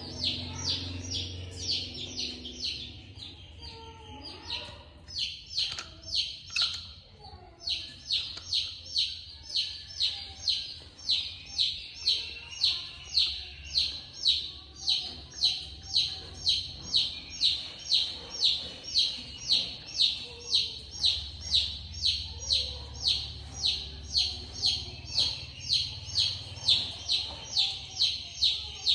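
A bird chirping over and over in short, high, evenly spaced chirps, about two or three a second, faltering briefly about five to seven seconds in.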